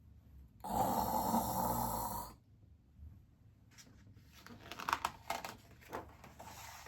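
A woman imitating a snore: one long snore of almost two seconds, starting just under a second in. Faint rustles and small clicks follow in the second half.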